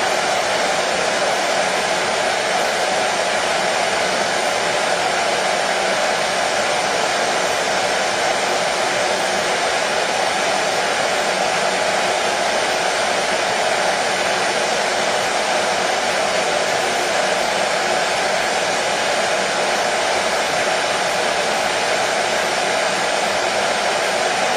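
Hair dryer blowing steadily, an even whooshing hiss with a faint hum and no change in pitch or level.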